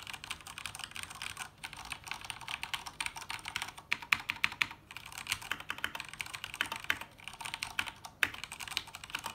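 Fast typing on a Ducky 2087S mechanical keyboard with Cherry MX Red linear switches: a steady, clean clatter of keystrokes bottoming out, with short pauses about a second and a half and five seconds in.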